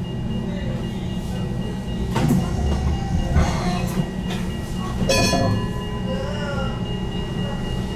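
HTM GTL8 tram running along the track, heard from on board: a steady low rumble with a thin steady high whine, and knocks about two and five seconds in, the second one with a brief high metallic squeal. A rising whine starts near the end.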